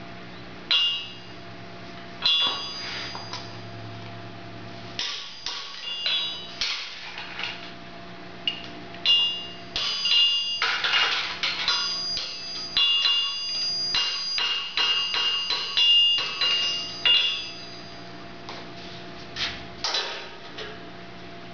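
Farrier's hammer striking a horseshoe held with tongs on an anvil, each blow ringing with a high metallic tone. A few spaced blows, then a quick run of many strikes through the middle, and a couple more near the end.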